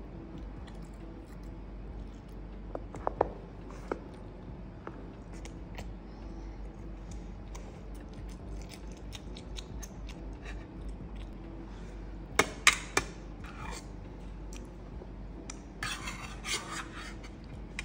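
A metal spoon clinking against a stainless steel divided food tray in scattered sharp clinks, the loudest a quick cluster about twelve seconds in.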